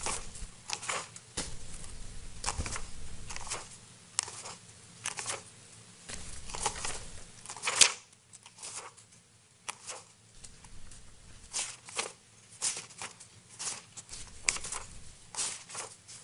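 Paper rustling and pages being turned close to a microphone, in a run of short, uneven crinkles and flicks with a faint steady low hum underneath. The pages are being leafed through in search of a place in a document.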